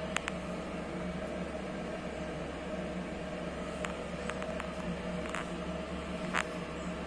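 Steady hum of a CNC machining centre running without cutting, with a few faint ticks.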